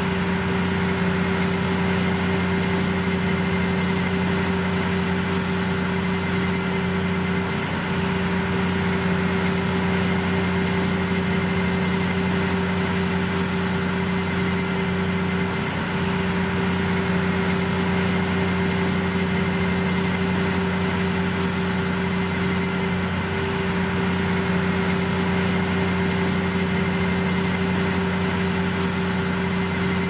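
Steady running of heavy construction-machinery engines, a constant low hum with a brief hitch about every eight seconds.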